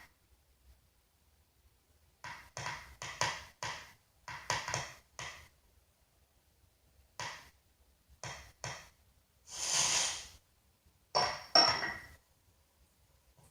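A string of short cartoon sound effects separated by silences: clusters of knocks and clinks, and a brief hiss-like noise about ten seconds in.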